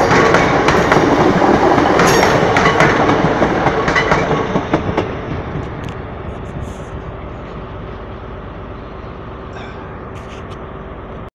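Class 150 Sprinter diesel multiple unit rolling past close by, its wheels clicking over rail joints and pointwork. The sound fades about five seconds in as the train moves away, leaving a lower steady rumble.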